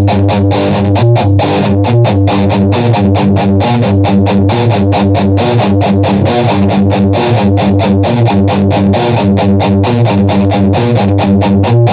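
Electric guitar music: fast, evenly picked notes, about five a second, over steady low bass notes.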